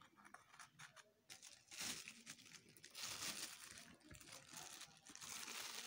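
Faint, irregular crinkling and rustling as spices are handled and sprinkled over mashed potato and flour in a steel bowl.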